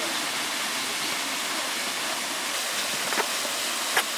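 Steady rushing noise of flowing water, with two brief clicks near the end.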